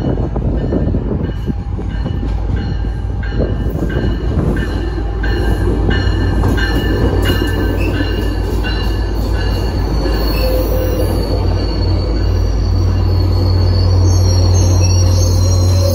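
Tri-Rail commuter train pulling into a station: bilevel coaches rolling past and braking with high-pitched wheel squeal. The low, steady hum of the diesel locomotive at the rear grows louder over the last few seconds.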